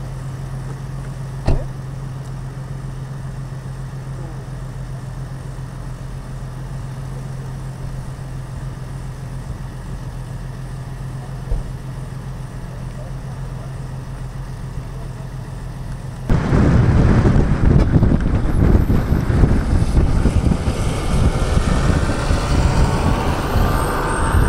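A steady low engine hum with a single click about a second and a half in; about sixteen seconds in it gives way abruptly to much louder, rough vehicle noise.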